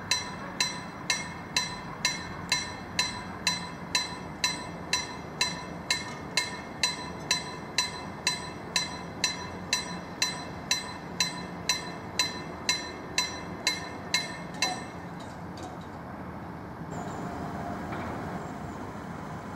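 Level-crossing warning bell striking about twice a second as the barriers lower, then stopping about 15 seconds in once they are down. A steady vehicle rumble grows louder near the end.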